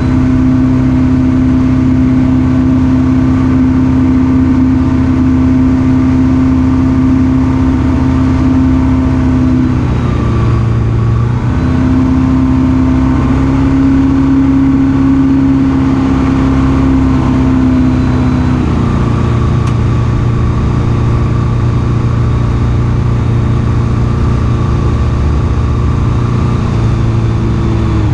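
Just Aircraft Highlander's engine and propeller heard from inside the cabin, running steadily and loudly in flight. The pitch dips briefly about ten seconds in, then settles lower a little past halfway, a change of throttle setting.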